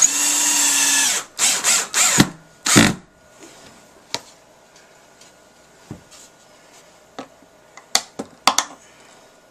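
Cordless drill driving a wood screw through a pine board: the motor whines steadily for about a second, then runs in a few short bursts, followed by a sharp knock. Scattered clicks and short drill bursts follow near the end; the screws are too short to bite into the board beneath.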